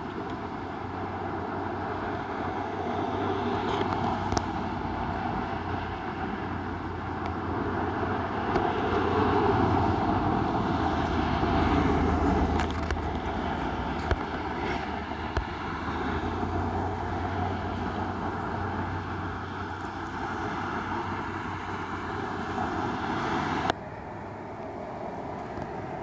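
Outdoor background noise with a steady low drone, swelling about halfway through, then dropping abruptly near the end.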